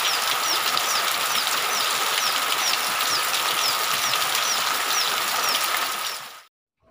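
Heavy rain falling and pouring off a roof edge: a steady hiss of water. Over it, a high falling chirp repeats about three times a second, with a faint steady high tone. Everything cuts off suddenly near the end.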